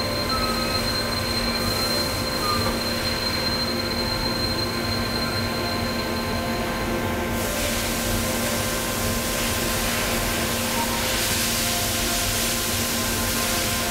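Cincinnati Milacron Sabre 750 vertical machining center running with a steady hum and whine. About halfway through, a high whine stops and a loud hiss starts and carries on.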